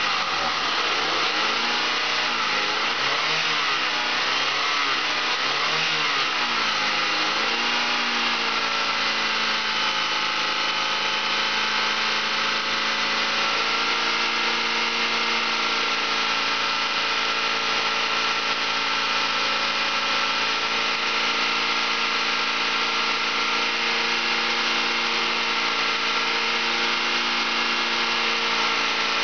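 A 1999 Honda Accord's 2.3-litre inline four-cylinder engine running. It is revved up and down several times in the first eight seconds, then settles to a steady idle.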